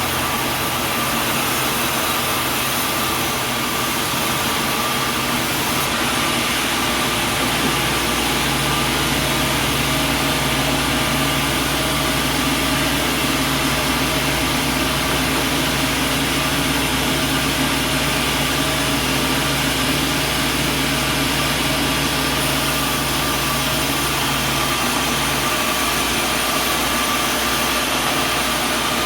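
Sawmill machinery running steadily, a motor's hum under a constant whirring noise. The hum shifts in pitch about six and eight seconds in and again near the end.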